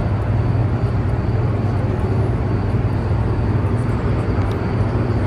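Hoover Dam's hydroelectric generating units running in the power-plant hall: a steady, loud, deep hum with an even rushing noise over it.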